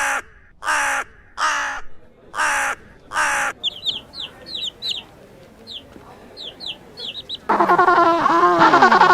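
Birds calling: five harsh, cawing calls in quick succession, then a few seconds of quick, high chirps from small birds. Near the end a loud, drawn-out animal call with a wavering pitch begins.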